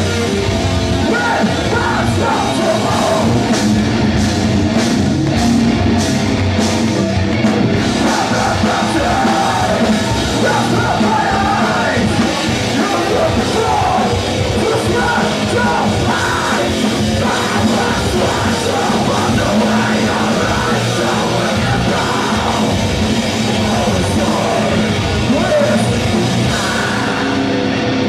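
Live metalcore band playing at full volume: distorted electric guitars, bass and drums with screamed vocals.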